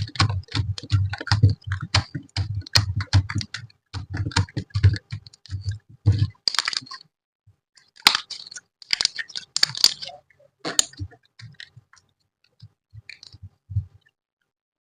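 Slime being squeezed and poked by hand, giving rapid sticky clicks and pops, several a second, for about the first six seconds. Then come a few longer crackly bursts, and near the end only scattered soft clicks.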